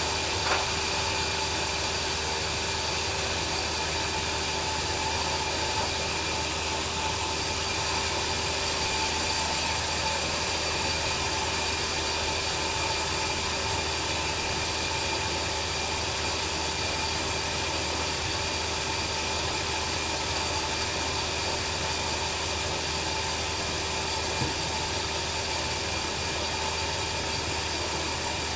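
Sawmill bandsaw machine running steadily between cuts, its drive and blade giving an even mechanical hum with a few steady tones and no cutting sound.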